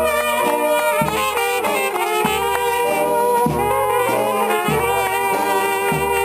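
Serbian folk brass band (trubači) playing a lively tune on trumpets, flugelhorns and tenor horns, with a bass horn sounding repeated low notes underneath.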